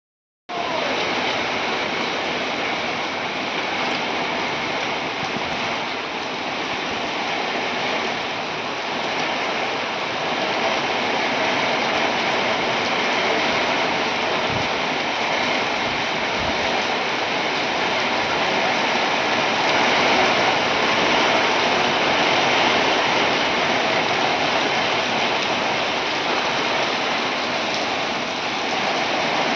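Heavy storm rain pouring steadily, a dense, even hiss that swells a little in the second half.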